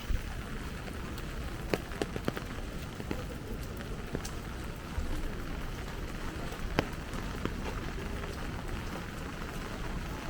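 Steady light rain falling, with a handful of sharp drops ticking on an umbrella's canopy.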